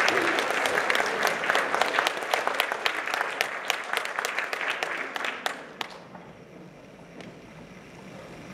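Audience applauding, the clapping thinning out and dying away about six seconds in, leaving a quiet hall with one or two stray claps.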